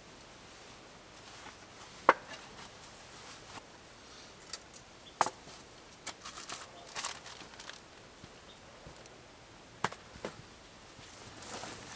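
Cloth bag being handled and tied shut, with soft rustling of the fabric and three sharp knocks spread through, the loudest about two seconds in.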